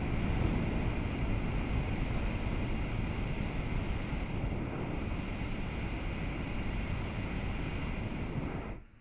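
Hot-air balloon's propane burner firing, a steady loud rush of noise that cuts off abruptly just before the end.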